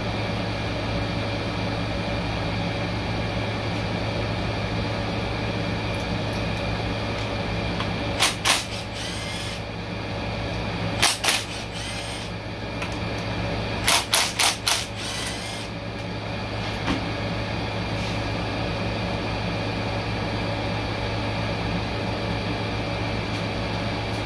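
Cordless ratchet running in short bursts, twice about eight seconds in, twice at eleven, then four or five quick runs around fourteen seconds, loosening the valve body bolts on a Ford 10R80 ten-speed automatic transmission. A steady hum underlies it.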